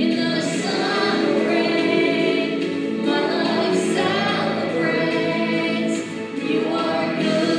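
Choir singing with accompaniment, in long held notes.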